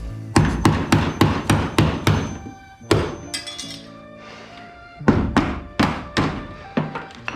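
Hammer driving a chisel to knock rivets off an aluminium aircraft skin: a run of sharp metallic strikes about three a second, a lull of a couple of seconds, then another run.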